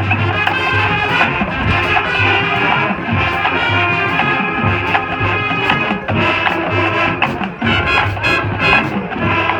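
High school marching band playing at full volume: brass over a drumline with a driving, repeating beat, swelling louder right at the start.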